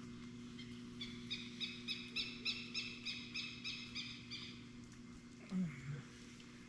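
A bird calling a rapid series of about a dozen short, sharp notes, about three a second, growing louder and then fading away.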